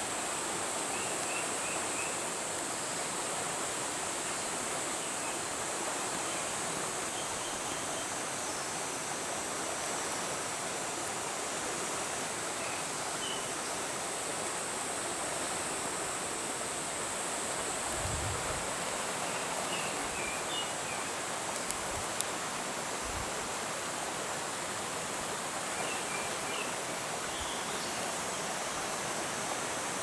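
Steady rush of flowing mountain water, a stream running below a waterfall. A few faint bird chirps come and go, and there are a few low bumps about two-thirds of the way through.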